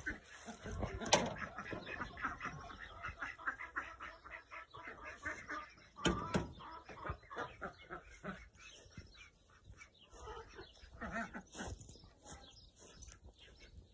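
Faint calls of farm poultry, a quick run of short clucking or chirping notes, with footsteps on grass and a couple of sharper knocks.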